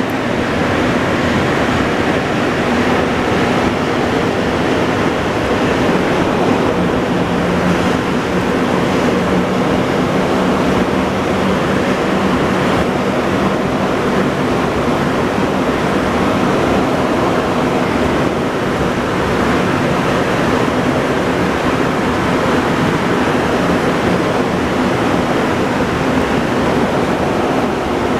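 Montreal Metro MR-73 rubber-tyred train running through the tunnel, heard from inside the car: a loud, steady rumble and rush with a faint low hum.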